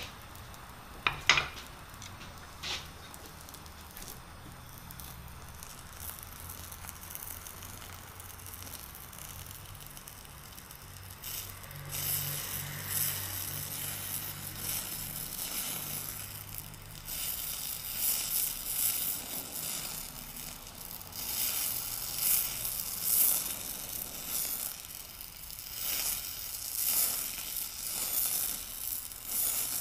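Flame of an Eutalloy oxy-fuel powder-spray torch hissing and crackling as it plays on the glowing end of a steel shaft, building up the worn surface. It starts about eleven seconds in, after a quieter stretch with a few sharp clicks near the start, the loudest about a second in.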